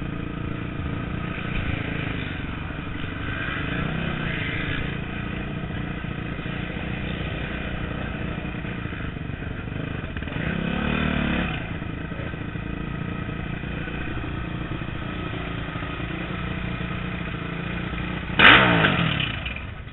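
Motocross bike engine running at low speed, heard from the rider's helmet camera, with a short rise and fall in revs about ten seconds in. A sudden loud burst comes near the end.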